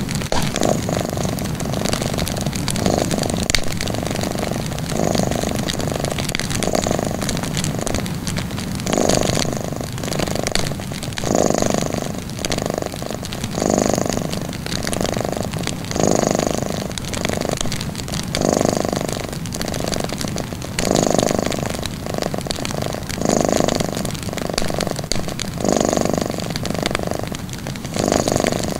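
A cat purring, swelling and fading in an even rhythm about every two seconds as it breathes in and out, with the light crackle of a wood fire.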